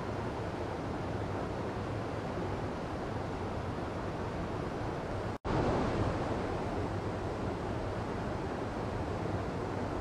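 Steady rush of a mountain stream pouring over boulders. The sound cuts out for a split second about halfway through, then comes back slightly louder for a moment.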